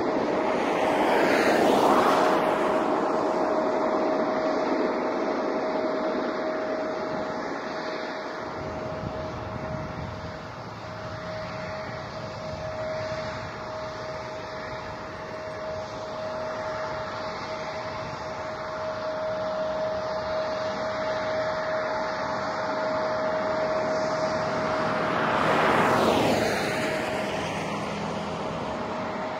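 Jet aircraft engines running at the airport with a steady whine over a wash of noise. A vehicle passes close by about two seconds in and again near the end.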